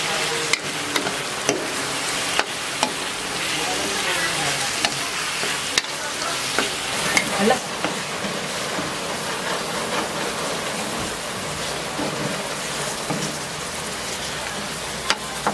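Pork binagoongan sizzling in a metal wok, frying in fat rendered from the pork itself, with no oil added. A metal ladle stirs it, scraping and clinking against the pan at irregular moments.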